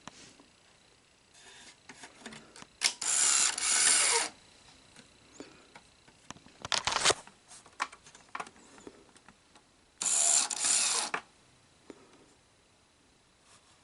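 Sony SL-HF600 Betamax VCR's tape-loading mechanism running in three short bursts of gear and motor whir, with scattered clicks between them. The machine is failing to eject, which the owner suspects involves a faulty solenoid.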